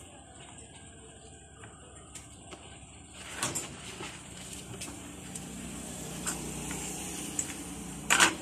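Kittens scratching and shuffling in pellet litter in a plastic litter box, giving scattered clicks and rustles, with a louder rattling clatter just after eight seconds. A low steady hum grows louder in the background over the second half.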